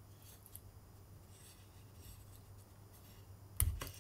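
Faint rubbing and scratching of fingers working a cabochon stone out of a small silver bezel cup, with a sharp click near the end.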